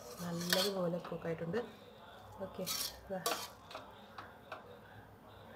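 A steel spoon scraping and clinking against a stainless steel pressure cooker while stirring cooked rice, with a few sharp clinks about three seconds in.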